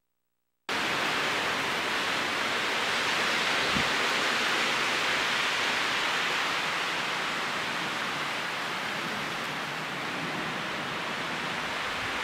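Strong wind rushing through trees at night: a steady hiss that swells and eases slightly, cutting in abruptly after dead silence about a second in.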